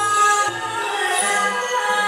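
A woman singing a slow melody with long held notes into a microphone, amplified through a PA with instrumental accompaniment.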